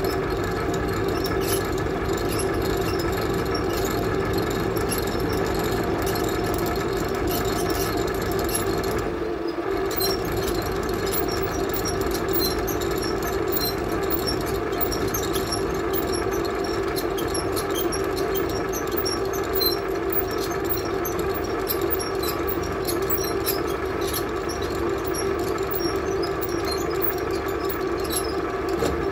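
Milling machine running with its end mill cutting a flat into a steel rifle barrel, the first stage of machining the octagon: a steady machine hum with several held tones and scattered faint ticks.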